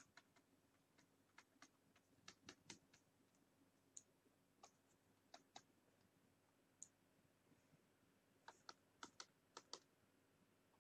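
Faint, irregular clicks of a computer mouse, some in quick pairs, as strokes are drawn with it, over a faint steady hum.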